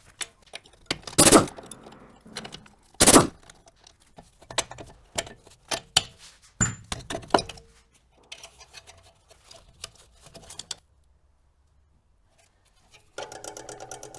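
Metal tools and parts clinking and knocking during car suspension work, with two loud short bursts of noise about one and three seconds in, and a short buzzing rattle near the end.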